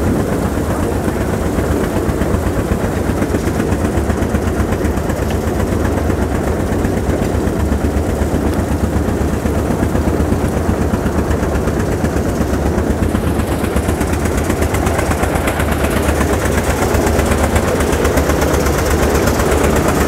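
Carrot washing machine running: its rotating drum tumbling carrots, a steady dense rattling over a low drone from the drive.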